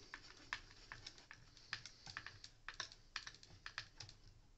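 Faint, quick, irregular light clicks of a small screwdriver turning a screw into the plastic housing of a Dyson soft roller cleaner head, the screw going in smoothly with no binding.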